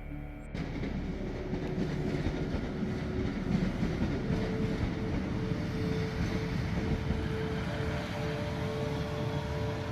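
A train running on rails, a steady rumble that starts abruptly, with a steady hum joining about four seconds in.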